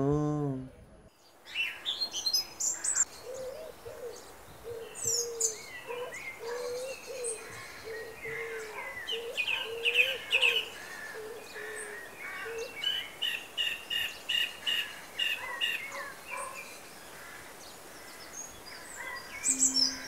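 Birdsong ambience: many birds chirping and trilling, with a low call repeated over and over through the first half and a run of quick repeated notes, about three a second, in the middle.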